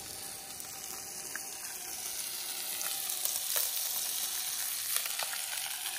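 Pieces of fish frying in a pan, a steady sizzle with a few small spits and crackles.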